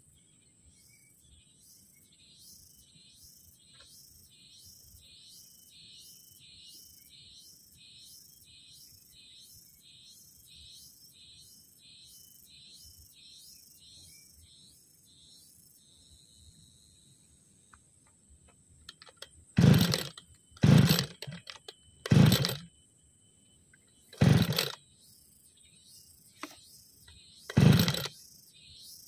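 Five hard pulls on the recoil starter cord of a 33cc backpack brushcutter's two-stroke engine, spread over about eight seconds; the engine does not catch. Before the pulls, insects chirp about twice a second over a steady high-pitched buzz.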